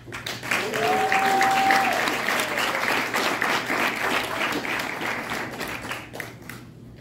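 Audience applauding, with one long held cheer rising over the clapping about a second in; the clapping fades out near the end.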